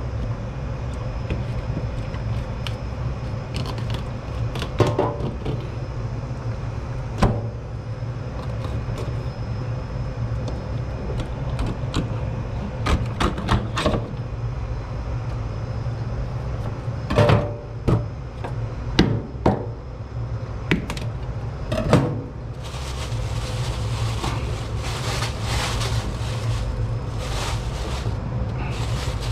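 Knife clicks and knocks against a plastic cutting board in a steel sink as a whole bonito is cut up, over a steady low hum. About twenty-two seconds in, tap water starts running into the sink with a steady hiss.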